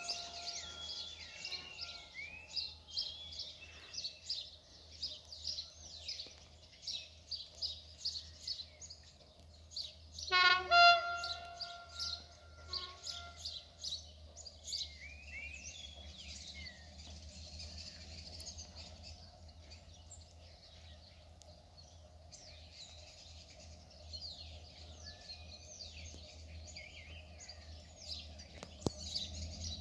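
Birds chirping throughout, with one short horn blast about ten seconds in from a distant Renfe class 334 diesel locomotive, the loudest sound. Near the end a low rumble grows as the train approaches.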